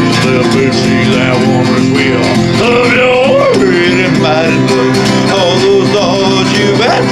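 Instrumental break in a country-bluegrass gospel song: a band with plucked strings plays under a sliding, wavering lead melody line.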